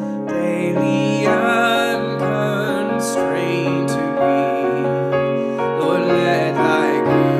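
A man singing a hymn verse with piano accompaniment.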